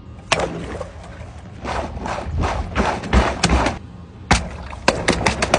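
A slab of ice being cracked and broken apart by hand: irregular sharp cracks and crunches, coming thick and fast near the end.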